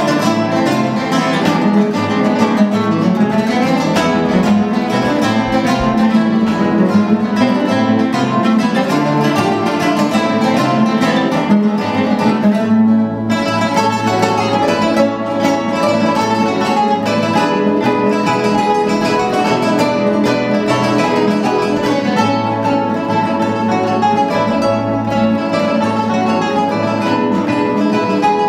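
An ensemble of classical nylon-string guitars playing a Spanish-style rondo together, with rapid plucked notes, briefly thinning out about halfway through.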